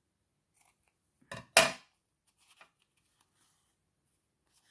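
Scissors clacking twice against the work table about a second and a half in, the second knock the louder with a brief metallic ring, amid faint handling ticks.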